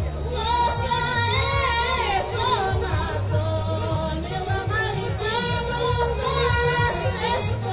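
Women singing a Bulgarian folk song with wavering, ornamented melodic lines over a steady low drone, heard through the stage sound system.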